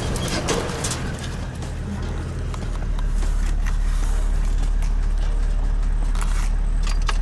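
Four-wheel-drive ute driving over rough dirt, heard from inside the cab: a steady low engine and road rumble that grows louder about two and a half seconds in, with a few short knocks and rattles.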